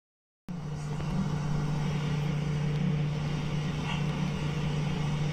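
Steady low hum with a background hiss, starting suddenly about half a second in after a moment of silence.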